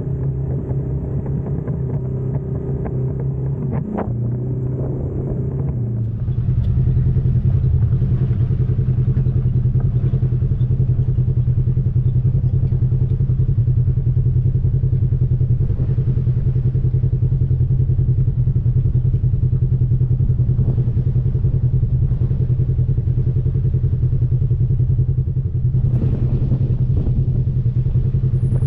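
Side-by-side off-road vehicle's engine running steadily under way, with some rattling, getting louder about six seconds in.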